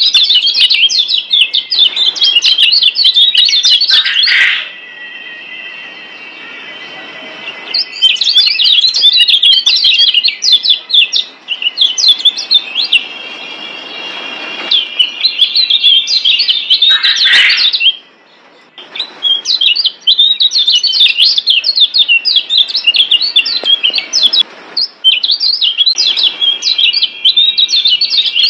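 Lombok yellow white-eye (kecial kuning) singing a fast, busy run of high chirps and trills, with a few short pauses. This is masteran tutor song for caged white-eyes.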